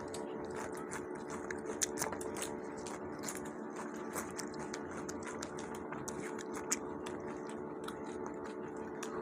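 Close-up eating sounds of people chewing and biting into tandoori chicken: many small wet smacks and clicks from mouths and fingers. A steady low hum runs underneath.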